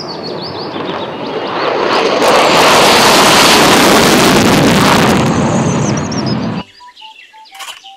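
F-16 fighter jet taking off on afterburner: loud rushing jet noise that builds, holds at its loudest through the middle, and cuts off suddenly about a second before the end. Faint bird chirps follow the cut.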